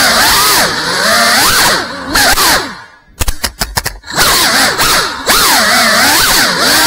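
FPV drone's brushless motors and propellers whining, the pitch swinging up and down with throttle. About three seconds in the whine nearly cuts out for about a second, with a few short stuttering blips, then spools back up.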